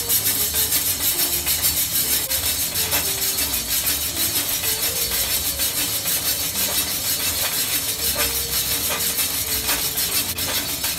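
Background instrumental music with a steady beat and a melody of short held notes.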